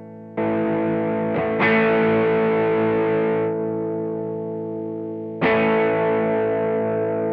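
Electric guitar played through an Ibanez Tube Screamer overdrive pedal, giving a mildly distorted tone. Chords are struck and left to ring and fade: once about half a second in, twice in quick succession around a second and a half in, and once more near the end.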